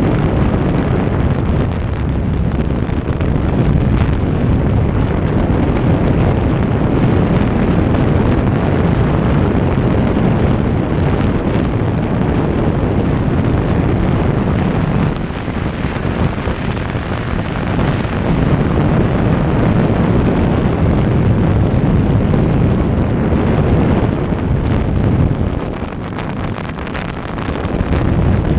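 Jet boat running at speed: a loud, steady rush of engine and water noise, with heavy wind buffeting the microphone. It eases briefly twice, about halfway through and again near the end.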